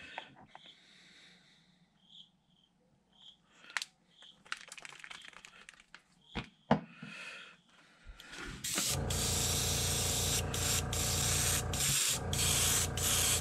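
Gravity-feed airbrush spraying paint, a steady hiss that starts about eight seconds in and stops for a moment a few times as the trigger is let off. Before it, a few faint clicks and taps as the paint bottle and the airbrush cup are handled.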